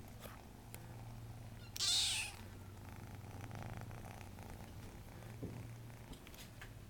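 Kitten purring steadily, with a short, loud rushing noise about two seconds in.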